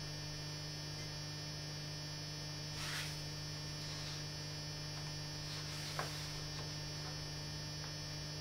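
Steady electrical mains hum, with a brief rustle about three seconds in and a single sharp click about six seconds in.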